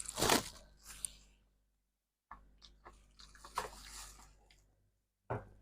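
Close-up crunching and chewing of soft freezer-frost ice. One loud crunch comes just after the start, then quieter crackling chews from about two and a half seconds in.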